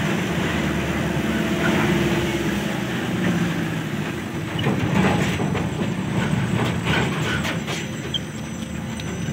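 Tata Super Ace mini-truck's diesel engine running steadily while the truck drives at low speed, heard from inside the cab. A few light rattles and clicks come in the second half.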